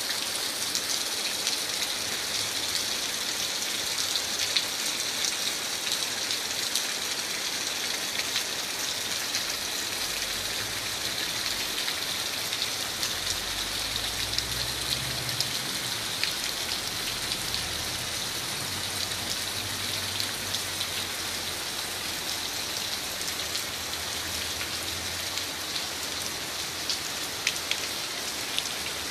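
Steady rain falling, an even hiss with many scattered individual drop ticks.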